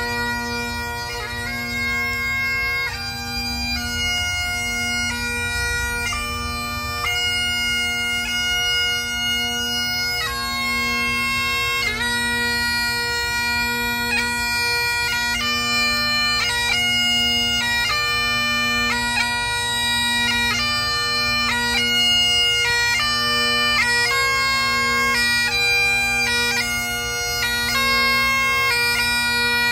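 Scottish Great Highland bagpipe playing a slow piobaireachd lament: steady drones under a chanter melody of long held notes, changing about once a second.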